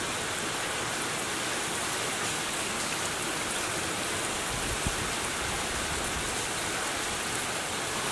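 Steady rain falling on a waterlogged grass lawn and puddles, with one brief low thump about five seconds in.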